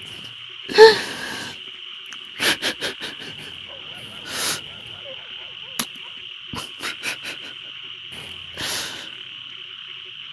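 Night ambience: a steady high-pitched insect chirring, broken by scattered short animal calls and clicks, the loudest about a second in.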